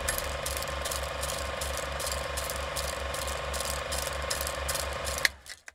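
Old film projector sound effect: a steady mechanical clatter at about four beats a second, cutting off suddenly near the end.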